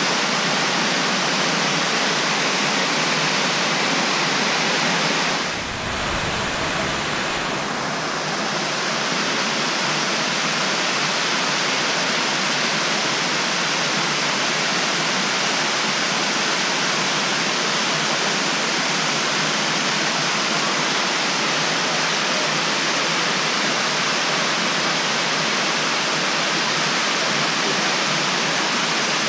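Benton Falls, a multi-tiered waterfall cascading over stepped rock ledges, rushing steadily as a dense, even wash of falling water. About six seconds in the sound briefly dips and muffles, with a low rumble for a couple of seconds.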